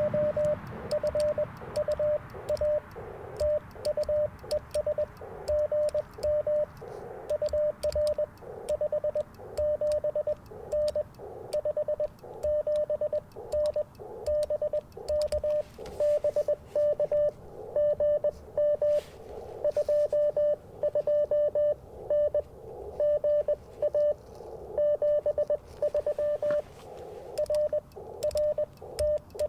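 Morse code (CW) from an Icom IC-705 transceiver: a single mid-pitched tone keyed on and off in dots and dashes, with fainter Morse signals at other pitches behind it and scattered light clicks.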